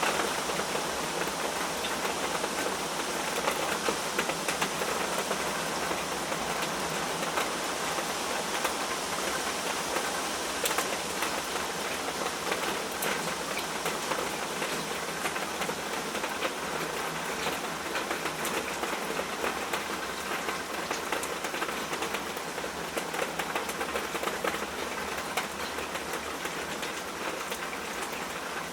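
Steady rain falling, with the patter of many individual drops striking a surface.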